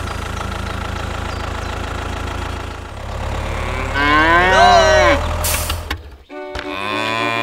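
Cow mooing, a long rising-and-falling moo about four seconds in and another call near the end, over a steady low engine drone in the first three seconds.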